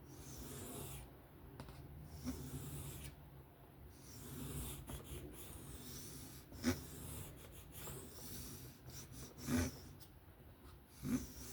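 A 154CM steel knife blade stroked by hand across a sharpening stone in freehand sharpening: repeated scraping strokes every second or two, working the edge to raise a burr. Three sharp clicks stand out in the second half.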